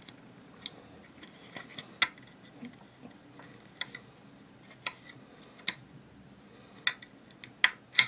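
Sharp metallic clicks and clinks, scattered irregularly, from steel parts of a Type 97 rifle being handled while a spring-loaded captive pin is pushed in and worked out. The loudest clicks come in a quick cluster near the end.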